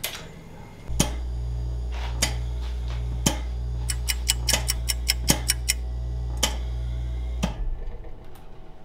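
Homemade Arduino-controlled gas mixer running its nitrogen fill into a tank: a steady low hum starts about a second in, with irregular sharp clicks that come quicker in the middle. The hum cuts off near the end as the fill completes.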